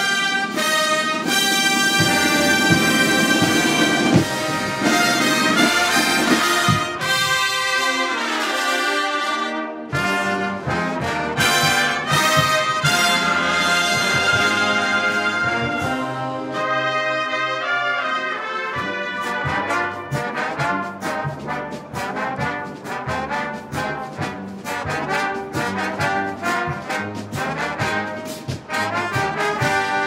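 Marching brass band playing: trumpets, trombones and large bass brass together. From about halfway, snare drums add a steady, evenly spaced beat.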